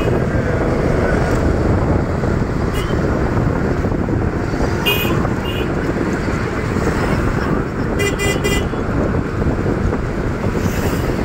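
Steady engine and road noise of an auto-rickshaw ride through traffic. Short vehicle-horn toots sound around three and five seconds in, and a quick string of horn beeps comes around eight seconds in.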